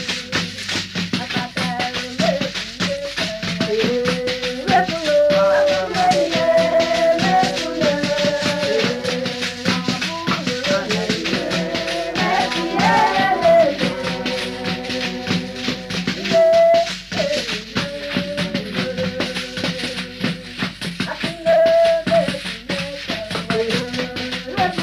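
Nigerian village band music from a 1965 field recording: a shaker rattle keeps a steady beat under a wavering melody line.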